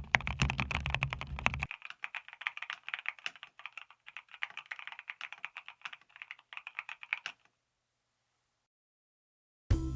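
Fast typing on a mechanical keyboard with WS Quartz linear switches (clear polycarbonate housings, nylon stems) in a plastic case: a quick, clear stream of key clacks. A low steady drone underneath stops about two seconds in. The typing stops about seven seconds in, and music begins at the very end.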